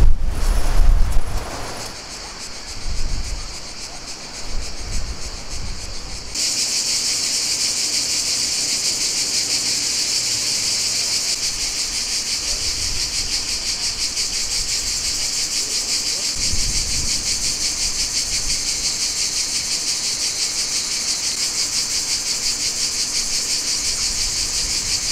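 Cicadas singing, a loud steady high-pitched buzz with a fast pulsing, which starts abruptly about six seconds in. Before it, and again briefly later, wind rumbles on the microphone, loudest in the first two seconds.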